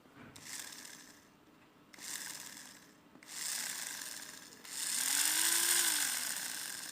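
Small geared DC motor of a toy car whirring in four bursts, each longer and louder than the last, the last one about three seconds with a tone that rises and falls.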